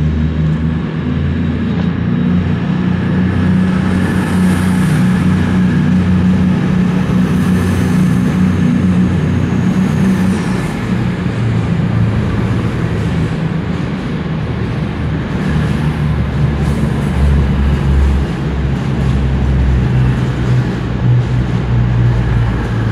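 CrossCountry Voyager diesel multiple unit moving slowly past along the platform, its underfloor diesel engines running with a steady low hum.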